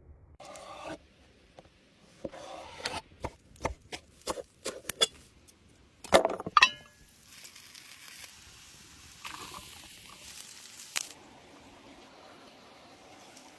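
Kitchen cooking sounds: a run of knocks and taps, then two loud metal clanks with a short ring about six seconds in, followed by a steady hiss lasting several seconds.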